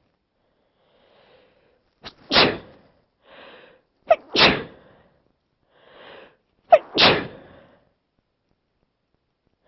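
A person sneezing three times, about two seconds apart. Each sneeze follows a short breathy intake and starts with a sharp catch before the main burst.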